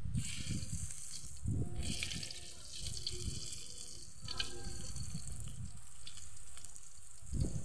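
Smoked fish frying in a little hot oil in a wide metal wok, a steady sizzling hiss with irregular crackles, and the spatula now and then scraping and pressing the fish against the pan.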